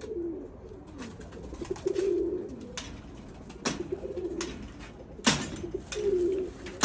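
Domestic pigeons cooing in short, low, repeated phrases, several times over, with a few sharp clicks; the loudest click comes about five seconds in.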